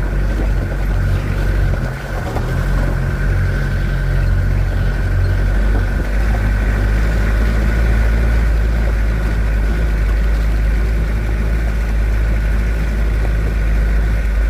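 Vehicle engine and road noise while driving: a steady low rumble with a thin constant whine above it.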